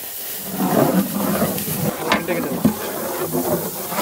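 Granulated sugar pouring in a steady stream into a large aluminium pot of wet dragon fruit pulp.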